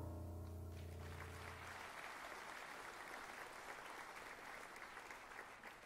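Faint audience applause, the even patter of many hands, fading out near the end, while the last low notes of piano music die away in the first two seconds.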